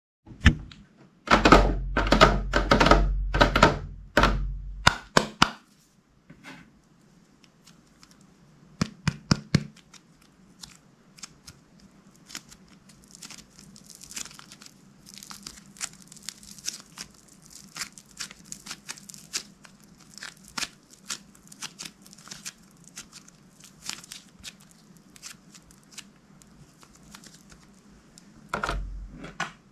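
Slime being handled by hand: a dense run of loud sticky clicks and pops with soft thumps for the first five seconds or so, then a short cluster of clicks and quieter scattered clicks and crackle, with a louder burst near the end.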